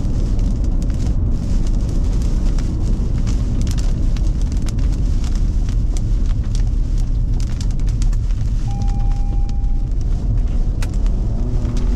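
Strong wind rumbling loudly around a vehicle, with raindrops striking the glass and body as scattered sharp ticks. A short single beep sounds about nine seconds in.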